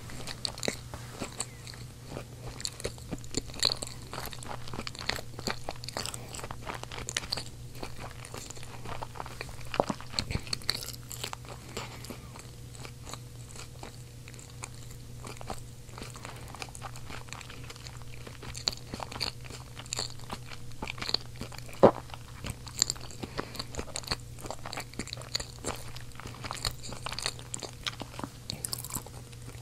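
Close-miked chewing of seasoned potatoes: a steady stream of small, irregular mouth clicks, with one sharper click about three-quarters of the way through. A steady low hum runs underneath.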